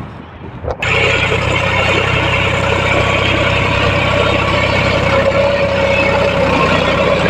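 John Deere 5050 D tractor's three-cylinder diesel engine running steadily under load as it pulls a two-bottom mouldboard plough through black soil in high-range first gear. The engine sound comes in abruptly about a second in.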